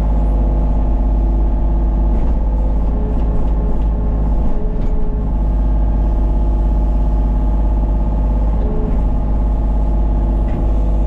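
Kubota KX033-4 mini excavator's three-cylinder diesel running steadily at working speed, heard from the cab. A higher whine comes in twice, a few seconds in and again near the end, as the hydraulics work the boom and bucket.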